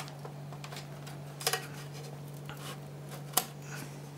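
Hand handling a circuit board inside a flight data recorder's metal card cage: a few sharp metallic clicks and taps, the loudest about three and a half seconds in, over a steady low hum.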